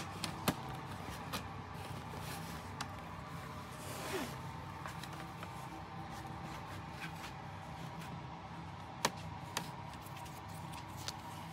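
Plastic clips of an HP laptop's case snapping and clicking as the keyboard deck is pried off the base with a plastic pry tool: a few sharp snaps, one right at the start, one about half a second later and two around nine seconds in, with small ticks and scrapes between.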